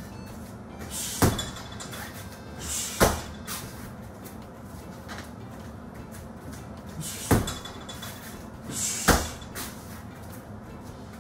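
Gloved strikes landing on a heavy bag, four sharp thuds in two pairs about two seconds apart. Each thud comes with a short hissing exhale from the fighter.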